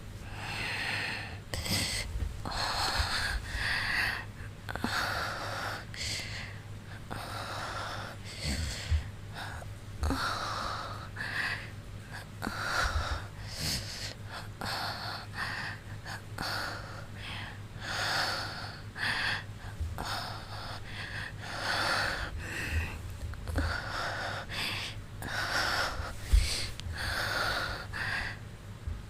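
A woman breathing heavily close to the microphone, a steady run of breaths at about one a second, over a faint steady hum.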